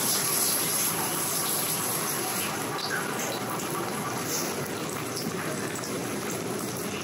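A panko-breaded flounder fillet frying in hot oil in a cast-iron skillet over medium-high heat, a steady sizzling hiss.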